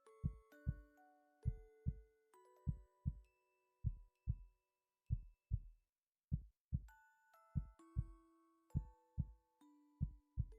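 A person's heartbeat picked up close on a microphone: low thumps in lub-dub pairs, repeating a little over once a second. Soft chiming musical notes play over it.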